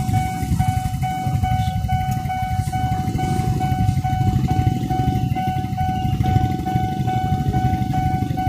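Railway level-crossing warning bell ringing in a fast, evenly repeating electronic tone, about three strokes a second, signalling an approaching train. Under it is the louder low rumble of car and motorcycle engines idling in the queue at the crossing.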